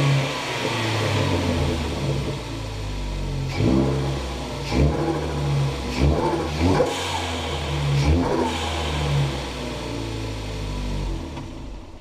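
A 2016 Ford Focus ST's turbocharged four-cylinder engine runs, with about five short, sharp revs in the middle; the sound fades out near the end.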